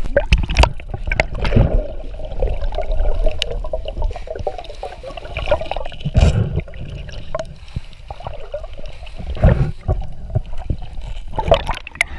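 Underwater sound through an action camera's waterproof housing: rumbling, gurgling water with knocks and scrapes from a gloved hand and pole spear grappling an octopus on the reef. The loudest knocks come about six seconds in and again near the nine-and-a-half-second mark.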